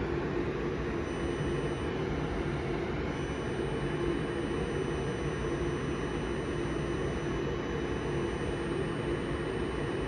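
Steady fan noise with a low hum: the Alienware M15 R3 laptop's cooling fans running while it boots.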